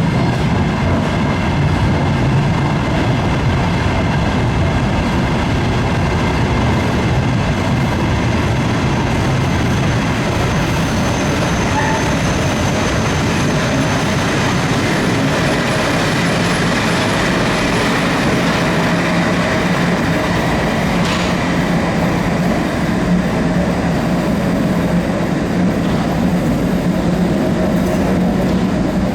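London Underground train running on the track, a loud, steady rumble of wheels and rails with faint wheel squeal throughout.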